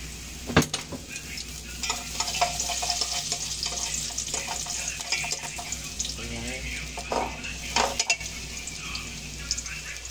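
Minced garlic sizzling in hot oil in an aluminium pot, stirred with a wooden spatula that knocks and scrapes against the pot. A sharp knock comes about half a second in, and the sizzle grows louder about two seconds in.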